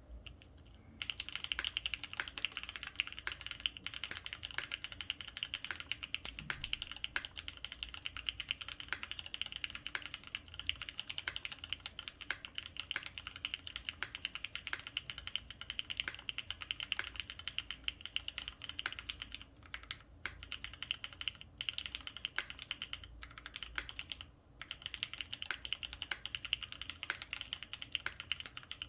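Typing on a Frog mini WK mechanical keyboard with Cherry MX switches in a polycarbonate plate, no case foam, and Keykobo Jindo keycaps. A rapid, steady stream of keystroke clacks starts about a second in, with brief pauses about two-thirds of the way through.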